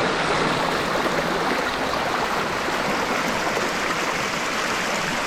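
Creek water flowing, a steady even rush of water noise with no break.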